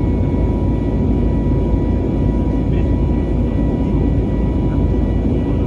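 Airbus A320neo jet engines and airflow heard inside the passenger cabin: a steady, loud low rumble with a few thin, steady whining tones above it.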